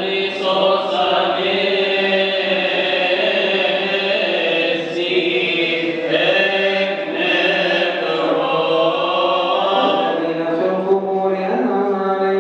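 Coptic Orthodox liturgical chant: men's voices singing long, drawn-out notes that bend slowly up and down without a break.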